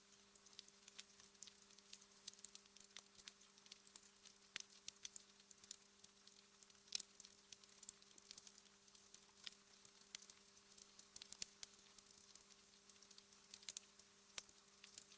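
Wood fire crackling in a fireplace: faint, irregular small pops and snaps, with one sharper pop about seven seconds in, over a faint steady hum.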